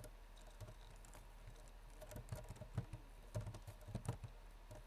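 Typing on a computer keyboard: a run of key clicks, sparse at first and quicker from about two seconds in.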